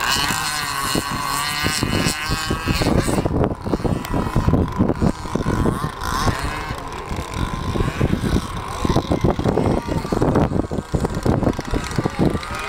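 Radio-controlled speedboat's motor whining at high speed, the pitch wavering, plainest in the first three seconds. Irregular wind gusts buffet the microphone and take over for the rest.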